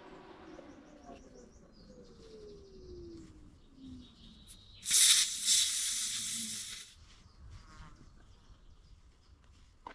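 Air hissing sharply out at the punctured ATV tyre for about two seconds, starting suddenly about five seconds in and cutting off.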